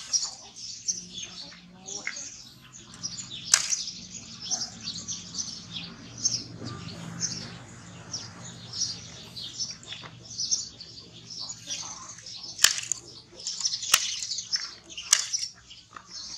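Small birds chirping constantly in quick short notes, with a few sharp clicks standing out now and then.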